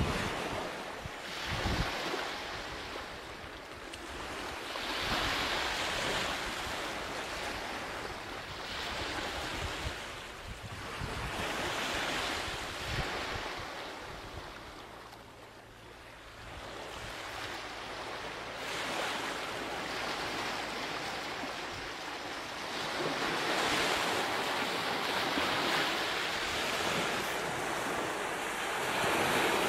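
Ocean surf: waves washing in and drawing back in slow swells every few seconds.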